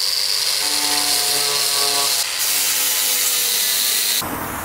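Loud, steady hiss of white paint being sprayed onto a car's bonnet, cutting off abruptly near the end.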